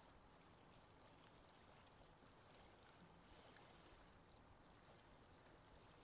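Faint, steady lake ambience: gentle water lapping with small ticks and trickles over a soft wash of wind.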